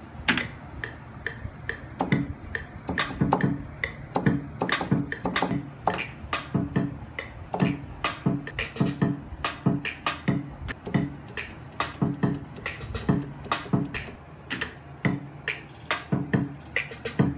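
Programmed hip-hop beat: quick hi-hat ticks and snaps over kick and bass thumps at a steady tempo, with keyboard parts.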